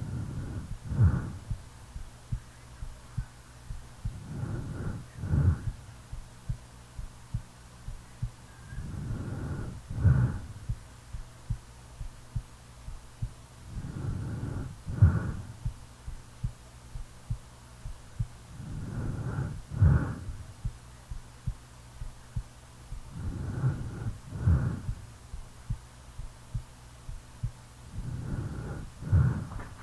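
A sleeping person's snoring breaths, one about every five seconds, over a steady heartbeat of soft thumps a little faster than one a second.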